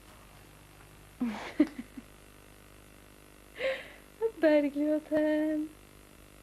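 A woman's voice calling softly to a baby, asking where she is in a drawn-out, sing-song tone. It opens with two short breathy sounds and then comes a held, sing-song call, with quiet tape hiss in between.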